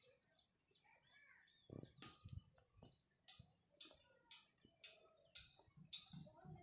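Faint chirping of small birds: short, high calls repeated about twice a second, with a few faint low thuds around two seconds in.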